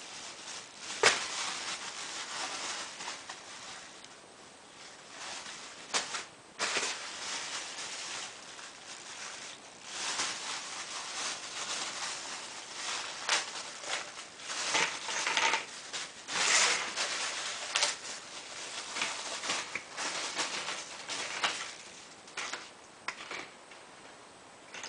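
Handling noise from assembling a solar panel mounting frame: parts rustling and clicking as corner connectors are fitted to the side tubes, in stretches of a few seconds with sharp clicks about a second in and about six seconds in.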